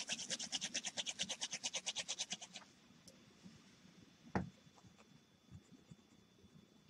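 Ballpoint pen scribbled rapidly back and forth on paper, about ten strokes a second for some two and a half seconds, to get a skipping pen's ink flowing again after its tip was soaked in alcohol. Then a single knock, and faint scratching of the pen writing.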